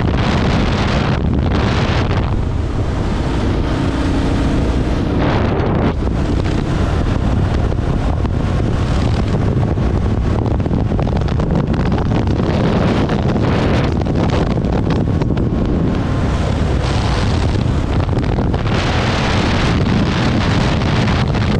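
Wind buffeting the microphone on a moving Kawasaki KLR650 motorcycle: a steady, loud rumble of air noise at riding speed.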